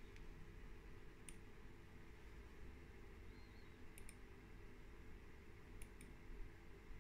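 Sharp clicks of a computer pointer button, about six in all: single clicks near the start and a second in, then quick pairs about four and six seconds in, over a faint low hum.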